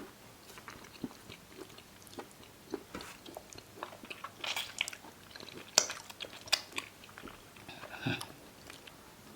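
Close-up eating sounds of a person chewing amala with egusi soup: wet mouth clicks and lip smacks, coming irregularly.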